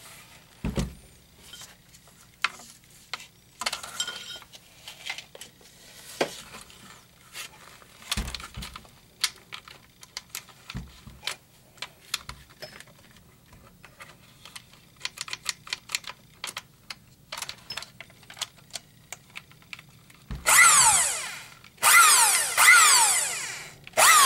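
Scattered clicks and knocks of handling, then, near the end, a small electric motor running in three short bursts, its pitch sweeping up and down again and again.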